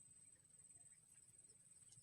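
Near silence: a faint low hum with a thin, steady high-pitched whine, and a faint click near the end.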